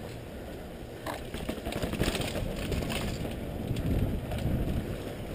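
Mountain bike rolling fast down a dirt trail: a steady rumble of tyres on dirt with the bike rattling over bumps and a few sharp knocks, louder from about two seconds in.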